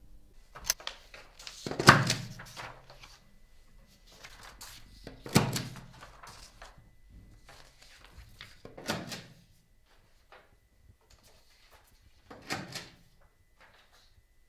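Four separate thuds and scrapes of objects handled on a table, each dying away quickly, about three to four seconds apart, with a smaller click just before the first. The loudest come about two seconds in and about five seconds in.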